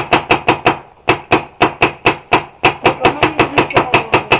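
Paintball marker firing rapidly, about six sharp pops a second with a brief pause about a second in.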